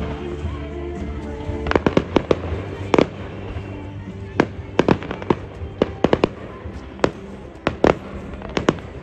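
Aerial firework shells bursting in a run of sharp bangs, starting about two seconds in, some in quick clusters of two or three, with music playing at first.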